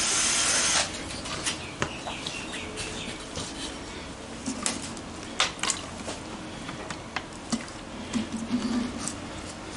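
Spray lubricant hissing steadily onto the tyre bead, cutting off sharply under a second in. Light scattered clicks and taps of the wheel and tyre being handled follow.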